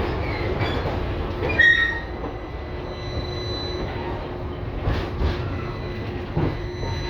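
LVS-2009 tram running on its rails, with a steady low rumble, a brief high-pitched wheel squeal about a second and a half in, then a faint steady whine.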